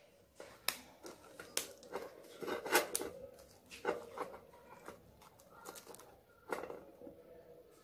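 Irregular small clicks and rustles of hands handling and fitting a plastic cap and wire crankshaft onto a homemade Stirling engine's pipe, the loudest a little under three seconds in.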